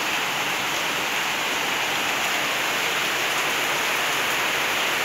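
Torrential rain falling steadily, an even hiss of a heavy downpour.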